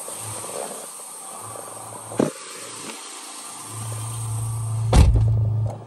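Porsche 911 Black Edition flat-six idling on a cold start, heard at the open driver's door, with its low hum coming up strongly a little under four seconds in. A sharp click about two seconds in and a loud thump about five seconds in.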